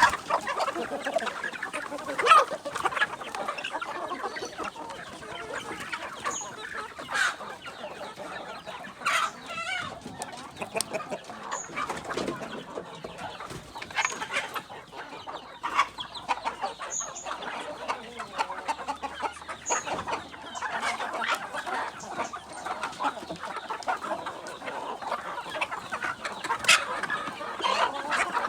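A flock of kampung chickens crossed with Bangkok game birds clucking continuously, many short overlapping calls with sharper, louder calls now and then.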